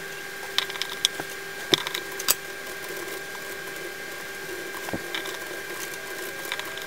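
Small sharp clicks and taps of tweezers and parts on circuit boards as SMD components are handled, scattered and irregular, bunched in the first couple of seconds and again about five seconds in, over a steady faint hum.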